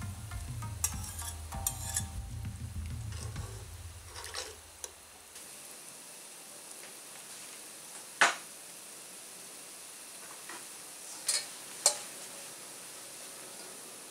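Pot of motsunabe soup boiling, a steady bubbling hiss, as metal tongs and a ladle clink against the bowl and the pot rim. A low rumble and a few clinks fill the first few seconds and fade out about five seconds in; three sharp clinks come later, one about eight seconds in and two close together near twelve seconds.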